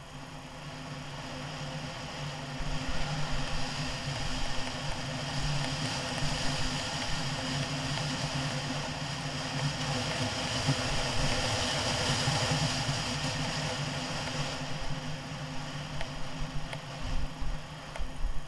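Scooter engine running steadily while riding along, its sound growing over the first few seconds, with wind rushing over the microphone. Gusts of wind buffet the microphone near the end.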